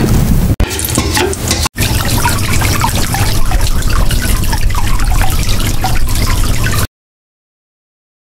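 Running, splashing water with many small bubbling blips. It breaks off twice very briefly in the first two seconds, then cuts off suddenly to silence about a second before the end.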